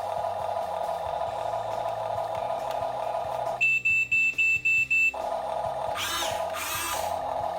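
Huina 1550 RC excavator's sound module playing a steady electronic engine hum. About midway the hum cuts out for six short, high-pitched beeps, then comes back, with two swooshing sweeps near the end.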